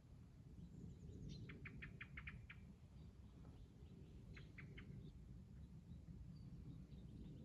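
Faint songbird calls: a quick run of about seven short chirps a second and a half in, three more a little after the middle, and a few thin high calls, over a steady low rumble.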